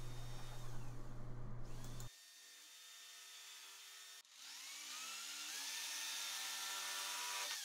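Jigsaw (saber saw) cutting through pallet board, heard faintly. It cuts off suddenly about two seconds in. After a short near-silent gap the motor comes back as a rising whine, speeding up, and then runs steadily.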